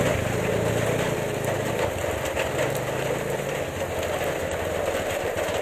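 Motorcycle engine idling steadily under a steady hiss of rain.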